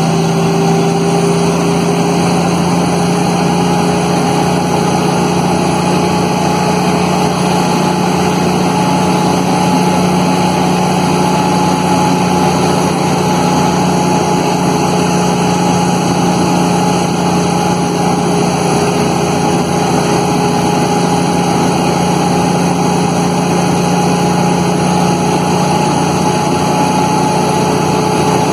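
A Kenworth T800's Cummins diesel engine running at steady revs with the engine brake on, heard from inside the cab as a loud, even drone with no change in pitch.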